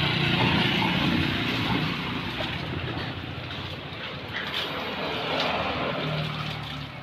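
A motor vehicle's engine going by, loudest at first and fading over a few seconds, with a low engine hum swelling again near the end.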